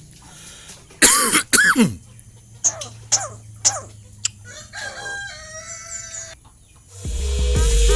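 Tame pet starling giving harsh, raspy cough-like calls about a second in, then a run of short sharp calls and a few stepped whistled notes, in its mimicry of a human cough. Loud music with a beat comes in near the end.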